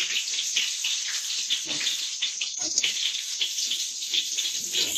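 Pounded garlic and ginger sizzling and crackling in hot oil as they are sautéed in a pan. It is a steady frying hiss thick with small pops.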